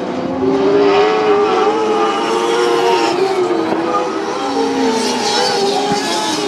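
Several lightning sprint race car engines running on a dirt track, their pitch rising and falling as they accelerate and ease off, with several engines heard at once.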